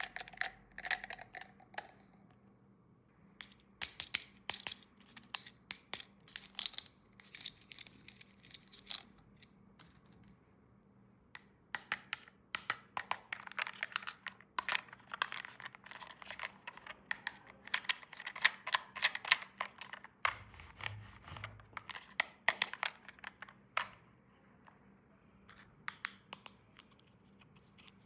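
Hands handling toy packaging and small plastic toy pieces: crinkling, tearing and scratching with many sharp little clicks, busiest in the second half.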